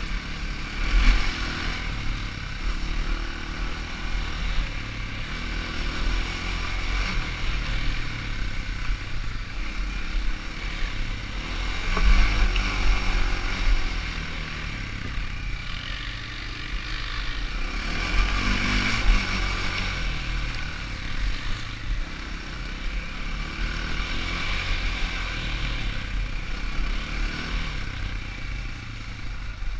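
ATV engine running with changing throttle, its pitch rising and falling as it rides. A rushing noise swells up several times over it.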